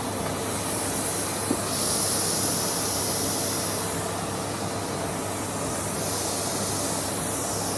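Numatic Henry tub vacuum cleaner running steadily with a constant motor hum, its high suction hiss swelling twice as the nozzle is worked over the sofa upholstery.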